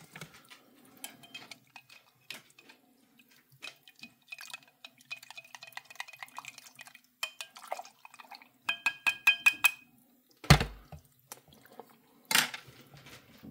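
A spoon stirring coffee in a cup, with rapid runs of light clinks that ring briefly against the cup. Near the end come a dull thump and then a sharper knock.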